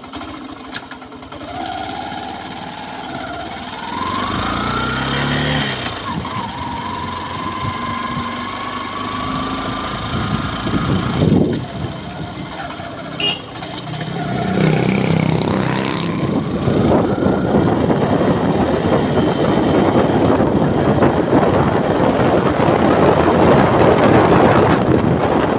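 Motorcycle engine pulling away and accelerating through the gears, its pitch rising in several steps over the first half. From about halfway, wind buffeting the microphone grows louder as speed builds and covers the engine.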